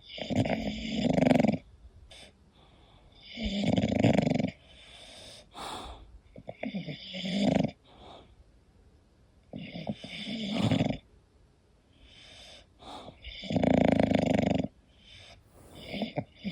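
English bulldog snoring in its sleep: a snore about every three seconds, six in all, each a second or so long and most growing louder before breaking off. A brief, sharper sound falls between some of the snores.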